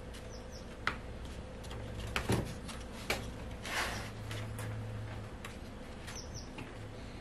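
Scattered light clicks and taps of thin spruce capstrip being handled and pressed into a wing-rib jig between clear plastic blocks, with a short rustle near the middle, over a steady low hum.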